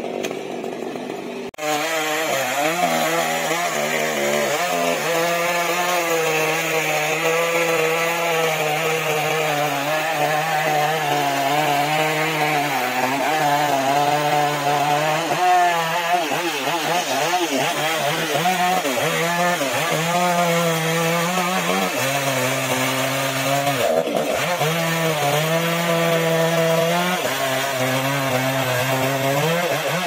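Chainsaw cutting through wood, its engine note wavering up and down as it works. It comes in suddenly louder about a second and a half in, then runs on with a brief dip about two-thirds of the way through.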